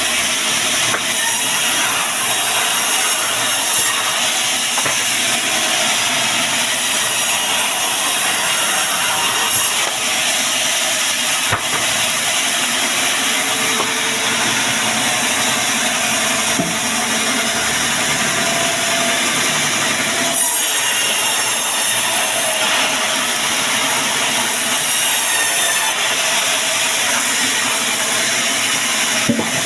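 Band sawmill running and cutting through a log: a steady, loud sawing noise that carries on without a break.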